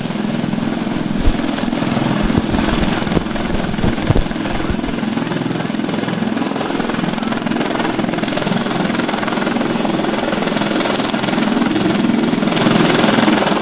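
Helicopter running steadily, a continuous rotor chop over engine noise, with a couple of brief low thumps about one and four seconds in.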